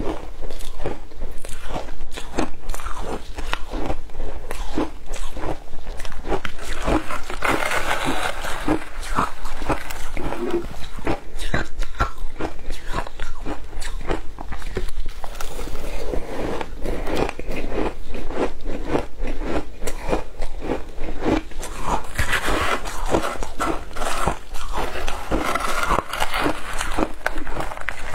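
Shaved ice being crunched and chewed, close-miked: a dense, steady run of crisp crunches, fuller and louder for a few seconds about a third of the way in and again toward the end.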